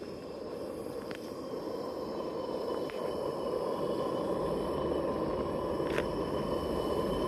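Gas burner of a camping stove running under a pressure cooker that is heating up, a steady rushing noise mixed with wind on the microphone, slowly growing louder. There are a few faint ticks, about one, three and six seconds in.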